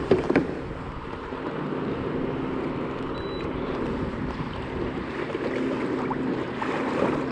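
A fishing kayak's bow-mounted motor running with a steady hum, with water rushing along the hull as the kayak moves.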